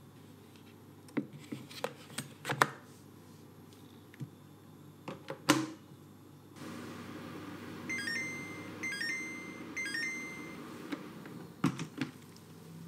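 Plastic steamer basket knocking into a Xiaomi Mijia rice cooker and the lid snapping shut, then three short electronic beep chimes from the cooker's control panel as steaming is started, over a steady hiss. Near the end, a couple of sharp clicks as the lid latch is released.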